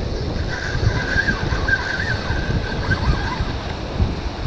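Wind buffeting the microphone over ocean surf washing against rocks, with a faint wavering whistle in the middle.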